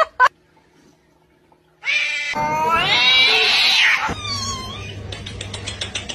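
A cat yowls loudly for about two seconds, its pitch rising as it goes. A few sharp clicks come before it. About four seconds in the yowl gives way to a low hum with a rapid run of light ticks.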